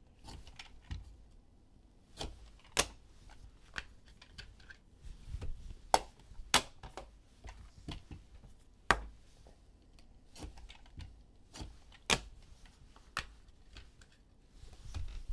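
Packs of basketball trading cards being opened by hand and the cards handled: irregular sharp clicks, crinkles and snaps of wrappers and card stock, a few of them much louder than the rest.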